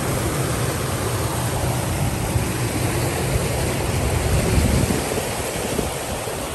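Small stream rushing over a little cascade between rocks: a steady rush of water.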